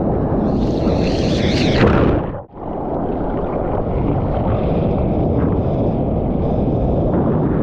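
Wind buffeting the microphone over rushing ocean surf, with a hissing surge of breaking whitewater in the first two seconds. The sound cuts out for a moment about two and a half seconds in, then the steady rush of wind and water carries on.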